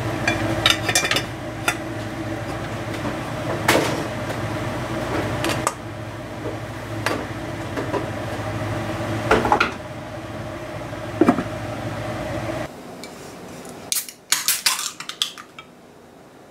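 A white plastic rice paddle scraping and knocking against a metal pot as cooked rice is scooped out, with a few sharp knocks, over a steady low hum. Near the end, a quick cluster of clicks and knocks as drink cans are set down on a wooden table.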